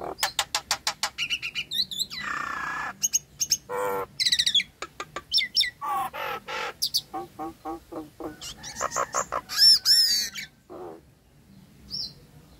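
Nias hill myna calling: a fast, varied string of clicks, harsh squawks and loud whistles, falling quiet about a second and a half before the end apart from one short whistle.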